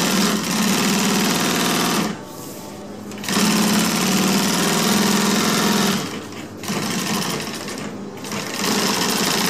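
Industrial sewing machine with a binder attachment, stitching binding tape onto a canvas panel edge. It runs in four bursts, with short stops about two, six and eight seconds in.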